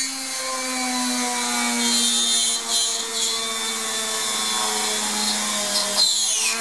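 Small electric rotary tool in a drill-press stand running at a steady whine while its bit drills slowly into a baked polymer clay bead. Its pitch sags a little, then dips sharply and comes back up near the end.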